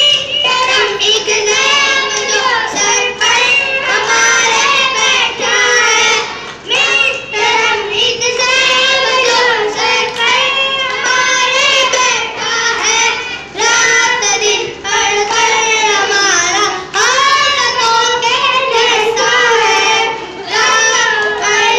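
A group of boys singing a qawwali, loud and continuous, with a few brief pauses for breath.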